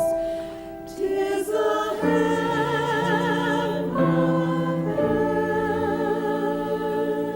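Church choir singing slowly, with long held notes that waver slightly in pitch.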